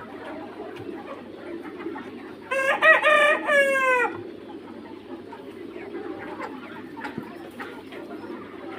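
A young Mía cockerel crowing once, a call of about a second and a half that falls in pitch at the end, over a low steady background with faint clucking from the flock.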